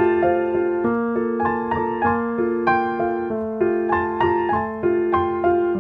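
Background piano music: a gentle melody of evenly paced notes, about three a second, over held lower notes.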